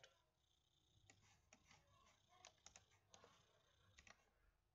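Near silence with several faint computer mouse clicks, some in quick pairs.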